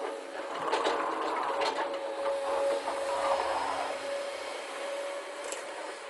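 Plastic toy trucks being handled over loose dirt: rustling and scraping with a few sharp plastic clicks for the first few seconds, over a steady background hum.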